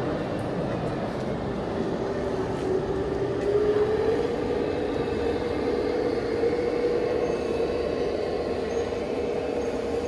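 A radio-controlled construction model runs with a steady mechanical hum and a motor whine. The whine rises in pitch about three seconds in, then holds steady.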